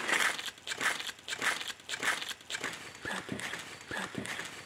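Crunching footsteps on dry ground litter: an irregular run of crackling steps, about two a second.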